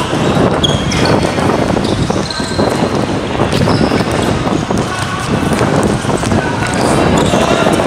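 Basketball game on a hard outdoor court: the ball bouncing as it is dribbled, running footsteps and brief sneaker squeaks, in a steady loud clatter.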